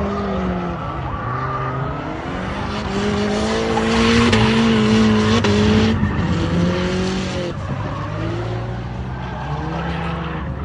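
Nissan SR20DET turbocharged 2.0-litre four-cylinder with a straight-through exhaust, TD05 turbo and Tomei Poncams, revving: its pitch rises and falls several times, is held highest and loudest about three to six seconds in, then drops sharply.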